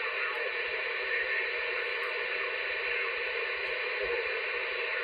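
Steady static hiss from an RCI-2970N2 radio transceiver's speaker, receiving an open channel with no voice on it.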